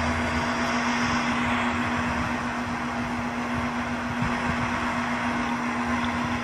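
Steady background noise: a constant low hum under an even hiss, with no clear music or voice.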